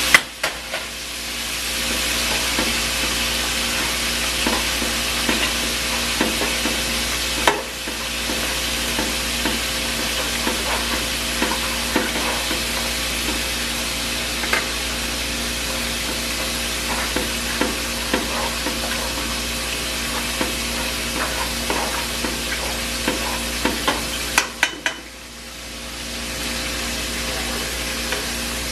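Chicken frying in hot grease in a pan: a steady sizzle with scattered clicks and taps, dipping briefly a few times.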